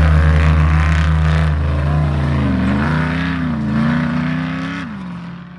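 Off-road race vehicle engine running hard, its pitch dipping and climbing again through the middle. Near the end the revs drop and the sound fades.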